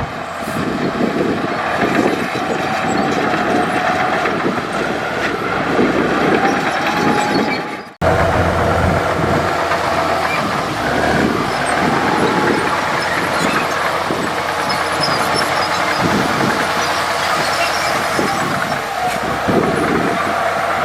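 Komatsu D65E crawler bulldozer working: its diesel engine runs steadily while the steel tracks clank and rattle irregularly. The sound drops out briefly about eight seconds in, then carries on.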